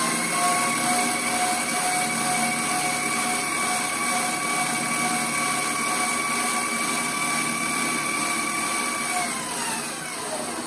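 Vevor 8x14 mini lathe with a 650 W motor, running with the chuck spinning at speed: a steady high whine over broad mechanical noise, as the spindle is run to throw out excess oil. About nine seconds in it is switched off, and the whine falls in pitch as the chuck spins down.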